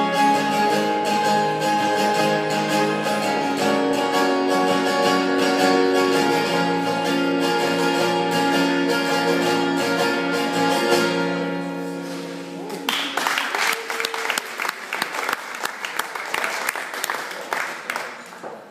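Two acoustic guitars playing the closing passage of a song, the notes ringing out and fading away about twelve seconds in. Audience applause starts about a second later and dies away near the end.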